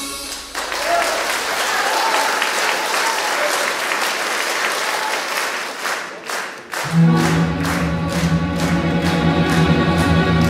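Audience applauding at the end of a song. About six seconds in, the applause turns to rhythmic clapping at about three claps a second. An orchestral backing track then starts with sustained low notes.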